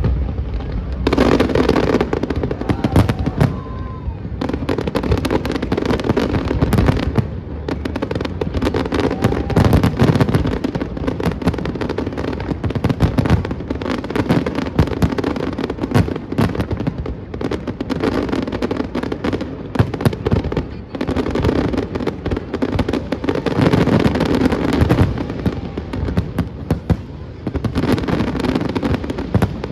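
Aerial fireworks display: a dense, continuous barrage of bangs and crackling with no pause.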